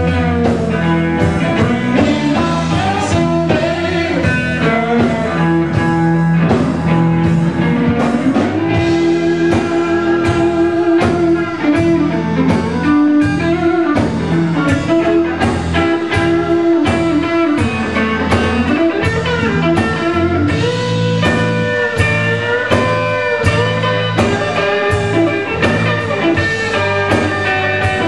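Live blues band playing: electric guitar lead with bent, held notes over bass and a steady drum beat.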